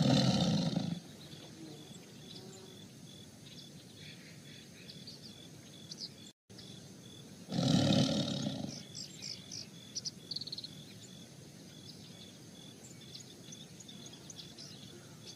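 Two tigers growling as they fight: a loud growl of about a second at the start and another about halfway through. Birds chirp faintly between them.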